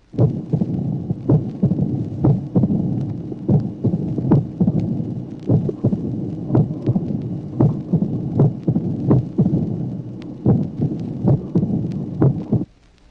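Recorded heart sounds of a patient with mitral stenosis and atrial fibrillation. Sharp clicks come at an irregular rhythm: a loud first heart sound and the mitral opening snap, over a low diastolic rumble of variable intensity.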